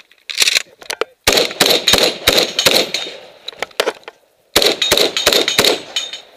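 Rapid semi-automatic shotgun fire from a modified Saiga 12. A couple of shots come first, then a fast string, a break of about a second, and a second fast string, each report ringing on briefly.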